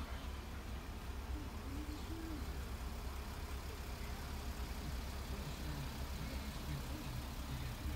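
Steady low engine rumble of a Mercedes-Benz Sprinter van, heard from inside its cabin while the van sits running.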